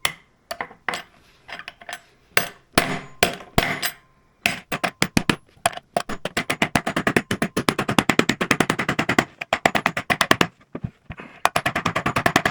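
Hammer blows on a punch driving out a stuck, glued-in part of an electric scooter's stem: a few separate strikes, then from about a third of the way in a fast, even run of rapid blows, several a second, broken by a short pause near the end.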